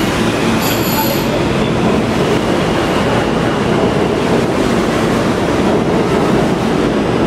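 R46 subway train running past a station platform: a steady loud rumble of wheels and motors. Two brief high whines sound in the first second or so.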